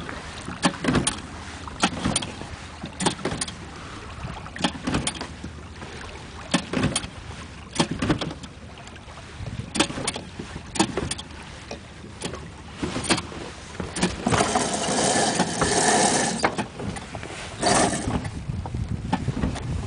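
Small Honda four-stroke outboard motor being pull-started again and again without catching: repeated short rasps and knocks as the cord is yanked and the engine turns over, never settling into a running note. A louder rushing stretch lasts about two seconds, about three quarters of the way through.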